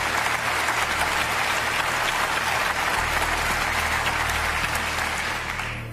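Studio audience applauding, dying away near the end.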